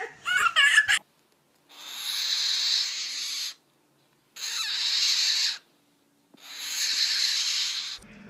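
Three long, breathy hisses from an animal, each lasting one to two seconds, with silence between them. They are preceded by a moment of a child laughing.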